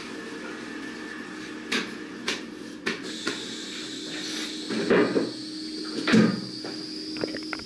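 A few sharp clicks and knocks, then two louder clattering bumps about five and six seconds in, over a steady low hum.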